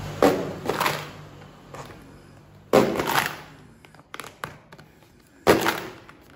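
Knife cutting into a pink plastic piggy bank: the plastic cracks and tears in three loud sudden bursts, about a second in, near the middle and near the end, with fainter scraping and ticking between.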